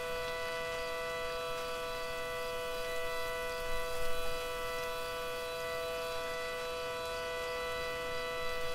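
Synthesized Federal Signal SD-10B outdoor warning siren holding a steady pitch: the alert (steady) signal, several tones sounding together with no rise or fall.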